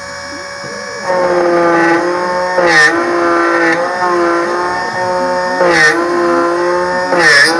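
Miracle A7 key machine's cutter motor running with a steady whine while cutting a Toyota TR47 key blank. The whine gets louder about a second in, and three times it dips briefly in pitch with a sharper metallic rasp.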